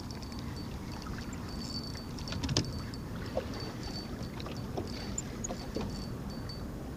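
Spinning reel's drag giving line in short, high-pitched bursts as a hooked sea trout pulls, with a steady wash of wind and water around the boat and one sharp knock about two and a half seconds in.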